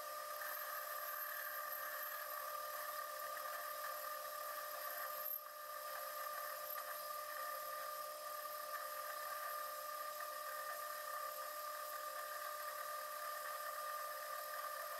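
Metal lathe running, a steady machine whine with a short dip about five seconds in.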